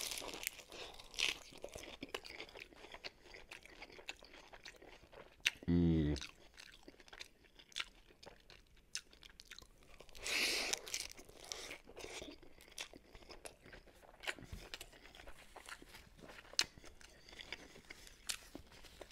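Close-up eating sounds of an iceberg-lettuce wrap filled with roast chicken being bitten and chewed: many small crisp crunches and chewing clicks throughout. A louder crunchy bite comes about ten seconds in, and a short hummed "mm" about six seconds in.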